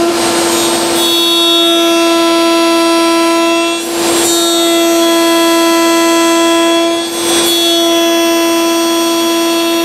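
Table-mounted router running at full speed with a large-diameter flush-trim bit, a steady high whine. It dips briefly twice, about four and seven seconds in, as the bit trims the dovetail splines flush with the box sides.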